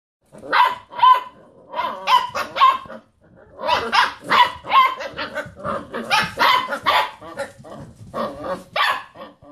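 A litter of basset hound puppies barking and rooing in short, high-pitched, overlapping calls, with a brief pause about three seconds in.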